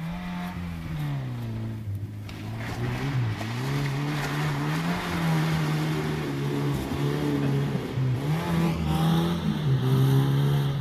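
Small SUV's engine revving hard through deep mud, its pitch rising and falling again and again. From about two seconds in, a rushing noise of wheels churning through mud and water joins it.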